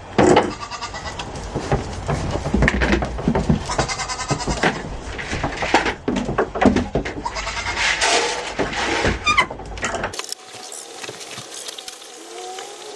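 Dairy goat bleating repeatedly, a hungry goat calling for its breakfast, over rustling and rumbling handling noise. About ten seconds in the sound cuts abruptly to a much quieter background.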